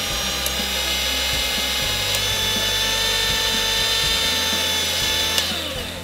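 Countertop blender motor running steadily with a high whine, blending avocado and milk in its jar; about five seconds in it is switched off and the whine falls in pitch as the motor spins down.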